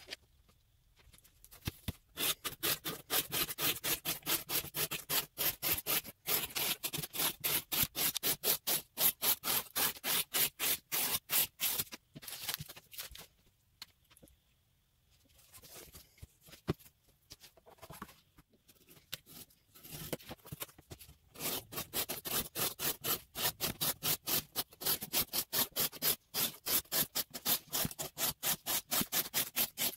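Spyderco Manix 2 Lightweight knife with a CPM REX45 blade slicing strips off corrugated cardboard, in rapid rhythmic strokes of about four a second, with a short pause and softer cuts midway. These are cardboard edge-retention test cuts.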